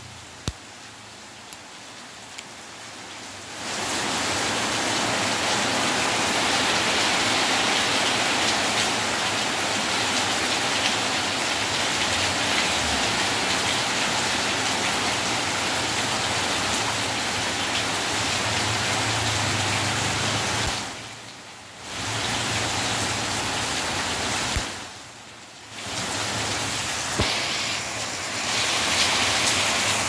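A few sharp clicks in the first couple of seconds, then a loud, steady rushing hiss like heavy rain or running water that drops out briefly twice near the end.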